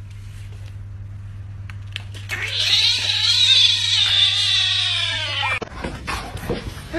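A cat's long, drawn-out yowl of about three seconds, its pitch rising and then falling, over a steady low hum that stops when the yowl ends.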